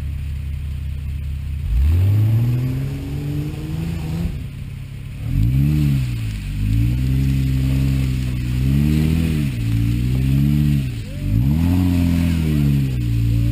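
Jeep Wrangler engine under load on an off-road trail: low, steady running for the first couple of seconds, then revving up in rising surges. The engine pitch climbs, wavers while held, and drops back twice, about four and eleven seconds in, before climbing again.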